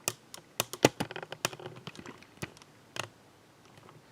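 Irregular sharp clicks and taps of small plastic laptop parts being handled, a quick cluster in the first second and a half with the loudest about a second in, then two more spaced-out clicks.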